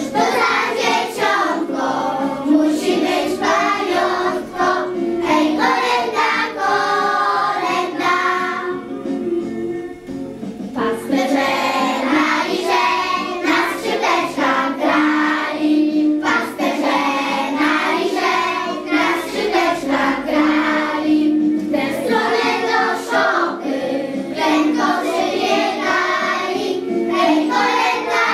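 A group of children singing a Christmas song together with music, pausing briefly about nine seconds in before carrying on.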